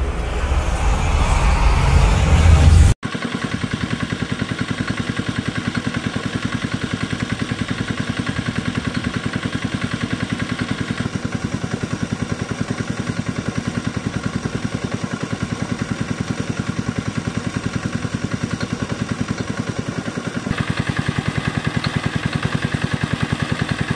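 Intro music for the first few seconds, then cuts off. A small single-cylinder stationary diesel engine runs steadily with an even, rapid beat, driving a pump that drains water. The sound gets brighter and louder about twenty seconds in.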